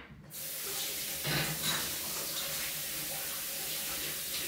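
Kitchen tap running steadily into the sink as hands are rinsed under it; the water comes on a moment in.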